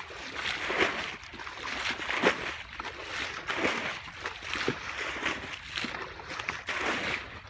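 Buckets scooping and dumping muddy pond water as the pond is bailed out by hand: repeated sloshing splashes, roughly one a second.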